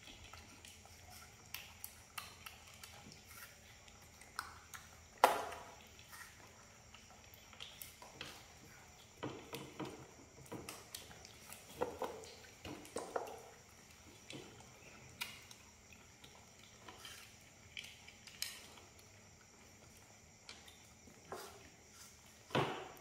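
Scattered light clinks and knocks of dishes and cutlery being handled, with one sharp knock about five seconds in.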